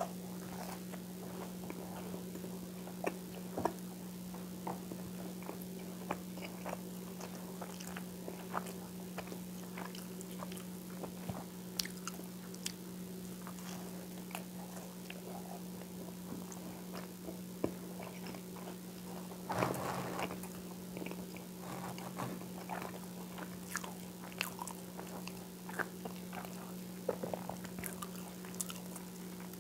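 Close-miked chewing and biting of whole wheat toast with peanut butter: scattered soft crunches and mouth clicks. A steady low hum sits underneath.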